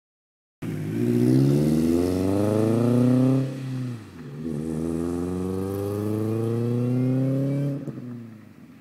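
2006 Chevrolet Cobalt SS supercharged 2.0-litre four-cylinder, running through a catless downpipe and MagnaFlow cat-back exhaust, accelerating hard. The pitch climbs through one gear, breaks for an upshift about three and a half seconds in, and climbs again through the next gear. Near the end it lifts off and fades.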